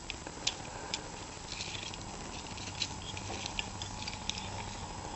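Faint, scattered small clicks of a small round metal tin and the fishing tackle in it being handled as the kit is packed back up, over a steady low hum.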